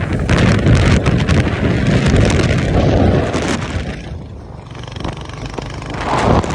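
Wind buffeting the microphone over the rumble of a motorcycle riding at speed, easing off briefly about four seconds in.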